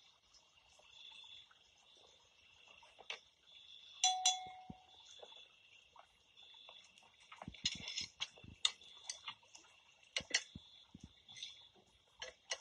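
Crickets chirping steadily in the night air, with scattered clinks and taps of plates and cutlery and one short ringing clink about four seconds in.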